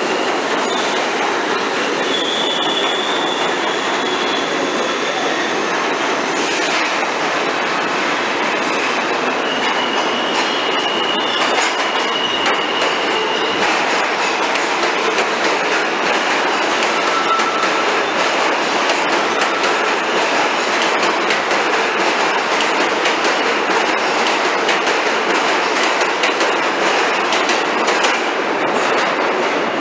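New York City subway train running through the station, with a steady loud rumble and a clatter of wheels over the rail joints. High steel-wheel squeals come in about two seconds in and again at around ten seconds.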